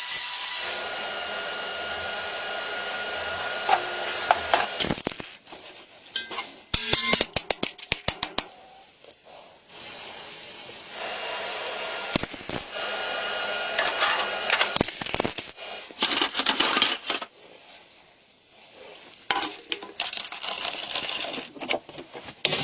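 Workshop tool sounds: a small power tool runs in spells with a steady whine, and a quick run of sharp metallic taps comes about a third of the way in.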